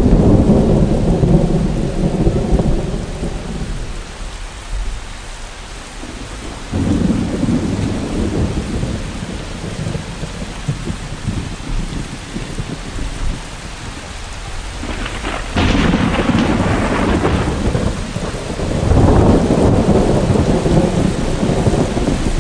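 Heavy rain on a car, heard from inside through the windshield, with thunder rumbling in several long rolls: near the start, about seven seconds in, and twice more in the second half, the one about fifteen seconds in beginning suddenly.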